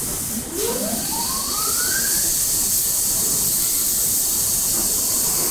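A lathe turning a cast aluminium wok body: a steady high hiss throughout, with a whine that rises in pitch over the first couple of seconds.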